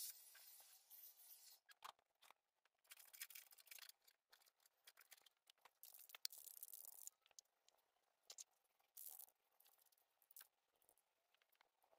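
Faint, scattered short hisses and rustles, with a few light clicks in between, from hands handling things at close range.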